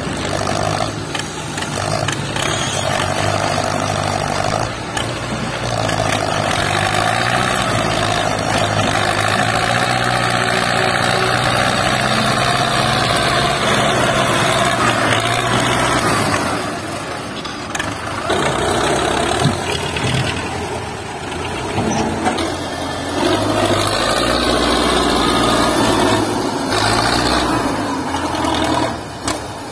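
Diesel tractor engine labouring under heavy load as it hauls a loaded earth trolley through loose dirt, its pitch rising and falling with the throttle and dipping briefly about halfway through. Black exhaust smoke marks the strain.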